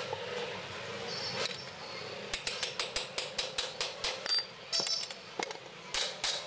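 A hammer tapping a steel pivot pin into the bore of an auto-rickshaw's front fork arm: quick, light metal-on-metal blows, about four or five a second. They start a couple of seconds in, break off briefly near the middle and then resume.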